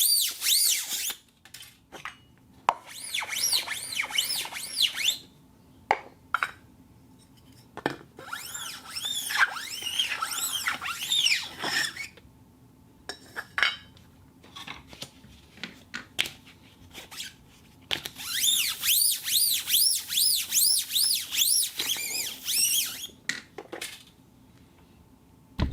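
Plastic cup squeaking against a rotating turntable plate, in several bursts of high, wavering squeals that rise and fall a few times a second, with scattered clicks and quiet gaps between the bursts.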